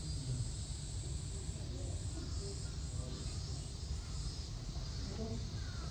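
Outdoor ambience: a steady low rumble with faint distant voices, and a bird's falling call near the end.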